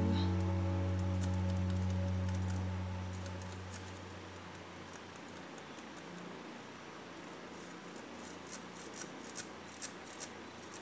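A held background-music note fading out over the first few seconds, then faint metallic clicks and rubbing as an air rifle's coil mainspring is handled on its rod, the clicks coming more often near the end.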